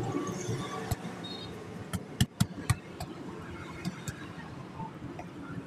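Rubber liner being handled and pressed into a large tyre casing by hand, with a few sharp clicks, the loudest about two to three seconds in.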